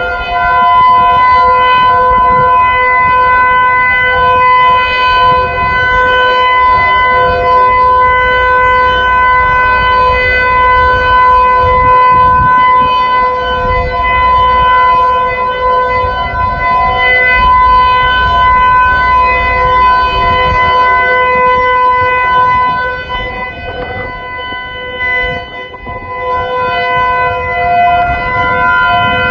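Outdoor tornado warning siren sounding a steady wail at a constant pitch during a siren test. The sound dips in loudness about three-quarters of the way through, then comes back.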